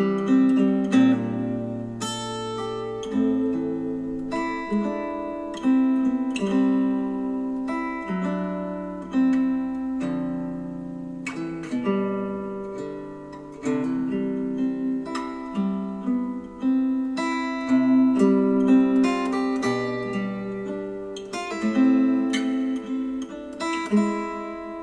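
Instrumental acoustic guitar music with plucked, ringing notes, played back through Klipsch The Fives powered speakers over Bluetooth with the Vocal EQ preset.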